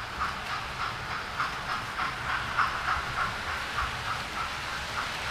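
Model steam locomotive and its coaches running on the layout track, with a steady rhythmic beat about four times a second over a light hiss.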